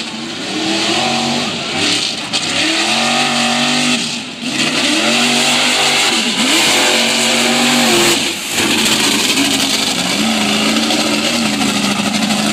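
Mega truck's engine revving hard, its pitch climbing and then dropping off about every two seconds as the throttle is worked through the mud course, then holding and rising again near the end. A steady hiss runs under it.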